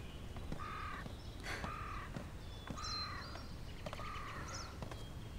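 A crow cawing about four times, roughly a second apart, with small birds chirping faintly in between.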